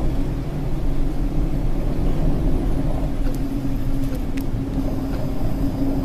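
A boat's engine running steadily with a low rumble, a steady hum growing stronger about halfway through.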